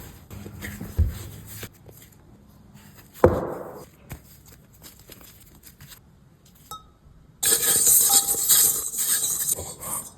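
Kitchen clatter from dough-making: scattered light clinks and knocks of utensils and a mixing bowl, one sharper knock about three seconds in, and a louder stretch of noisy clatter during the last few seconds.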